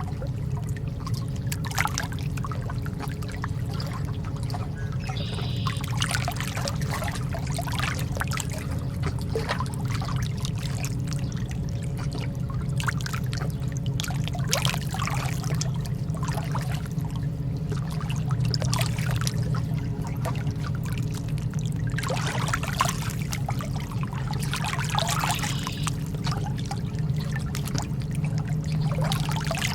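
Calm sea water lapping and splashing in small gushes every few seconds, over a steady low hum.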